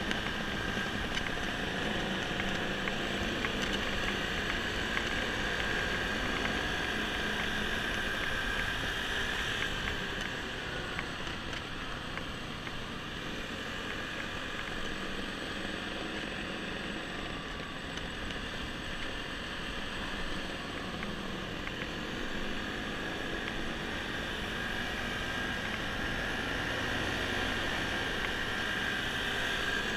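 Scooter engines running at steady road speed on a group ride, heard from the rider's own Honda scooter, with road and wind noise mixed in. The sound eases off slightly about ten seconds in and builds again near the end.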